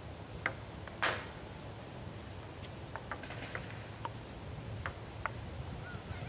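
Table tennis balls clicking on tabletops and rubber-faced paddles in two overlapping rallies, an irregular series of short, ping-like knocks. One louder, sharper knock comes about a second in.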